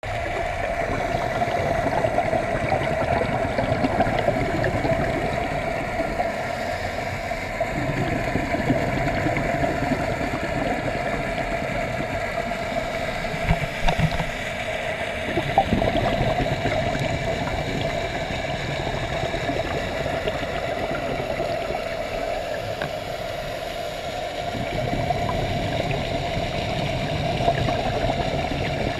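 Underwater ambience picked up through an action camera's waterproof housing: a steady hum over a continuous watery wash, with a couple of short clicks around the middle.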